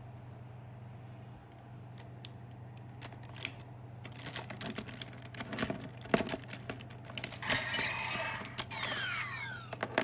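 Plastic clicking and clacking as Gaia Memory toys are handled and slotted into a Kamen Rider W transformation-belt toy. From about seven and a half seconds the toy plays its electronic sound effects, with sweeping tones near the end.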